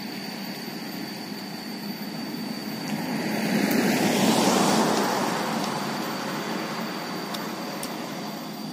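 A road vehicle passing by: a rush of noise that swells, is loudest about four and a half seconds in, and fades away.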